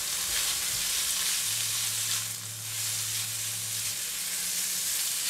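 Black fungus (wood ear) and ginger strips sizzling steadily in hot garlic oil in a stainless-steel wok while being stirred with a silicone spatula.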